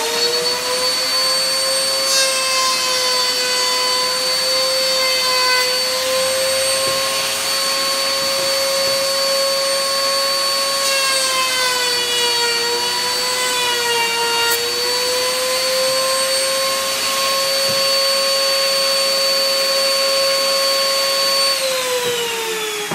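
A router in a router table, with a shop vacuum attached, running together with a steady high whine as a 45° chamfer bit cuts along a board's edge. The pitch sags briefly about midway as the bit takes the wood. Near the end the motor pitch falls away as it winds down.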